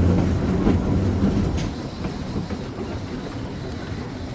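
Springfield Electric Railway car 16, a 1926 Wason-built trolley, running on its track: a low rumble of wheels and running gear with a sharp click about one and a half seconds in. The rumble grows quieter about two seconds in.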